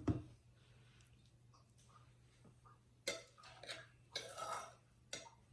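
Faint scraping and clicking of a spoon against a pan and a serving bowl as fried brinjal with egg is served out, with a thump at the start and a few scrapes and clicks later on, over a low steady hum.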